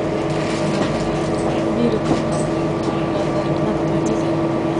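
A city bus's engine and road noise heard from inside the moving bus: a steady drone with a constant hum over rumble.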